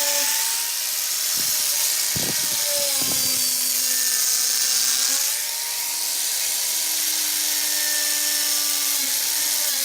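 Electric power tool running steadily with a high hiss, its motor pitch sagging now and then as it is pressed into the work. A few knocks come between about one and a half and three and a half seconds in.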